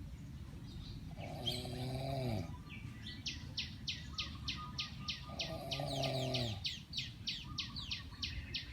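A sleeping person snoring loudly: two long, droning snores about four seconds apart, each sagging in pitch as it ends. Rapid high chirping, about four chirps a second, runs behind the second snore.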